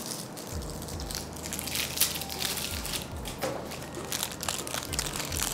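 Plastic chocolate-bar wrappers crinkling and crackling as they are handled and unwrapped by hand, with a few soft low thumps.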